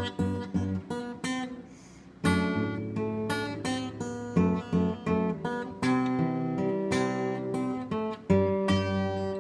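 Steel-string acoustic guitar played solo, chords strummed and picked in a steady rhythm. About a second and a half in the notes ring out and fade, then the playing comes back in with a loud strum a little after two seconds.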